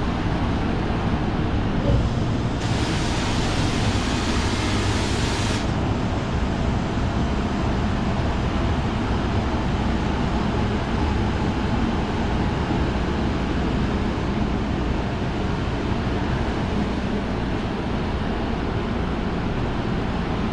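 Steady mechanical-room noise from boiler room equipment running, with a low rumble. About two seconds in, a sharp hiss starts, lasts about three seconds and cuts off suddenly.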